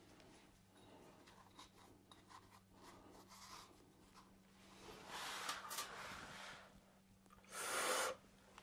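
Paper towel rubbing and rustling against the metal bowl of an oil burner's fuel pre-filter as it is wiped clean, with a steady faint hum underneath. A louder rush of noise comes about five seconds in, and a short, louder one near the end.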